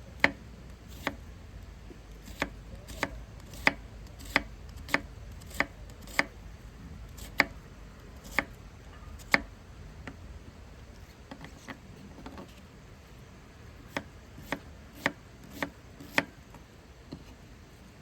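A knife chopping on a cutting board with single sharp knocks, one every half second to a second, pausing for a few seconds in the middle before a second short run.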